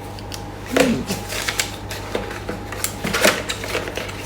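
Hard plastic hair-dryer attachments being handled: a series of irregular light clicks and knocks.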